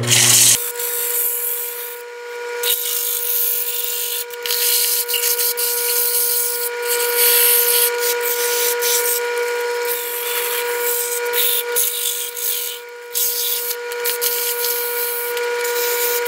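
Wood lathe running with a steady motor whine while sandpaper is pressed against the spinning wooden wheel pattern, making a rough sanding hiss that swells and fades as the pressure changes.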